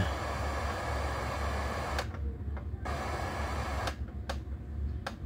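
Hissing FM static from a Panasonic AV receiver's tuner played through a small test speaker, tuned to 98 with no antenna connected, so no station comes through. The hiss cuts out briefly a few times, about two seconds in, about four seconds in and near the end.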